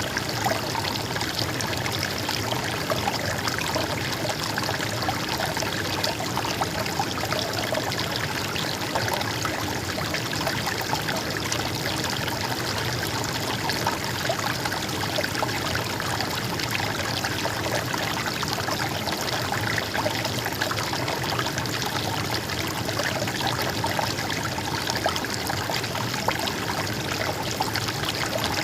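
Stream water flowing and babbling steadily.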